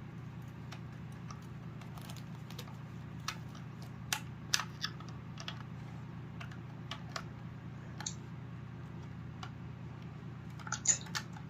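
Scattered light plastic clicks and taps from a smoke alarm being handled and readied for a test, with a small cluster of clicks near the end, over a steady low hum.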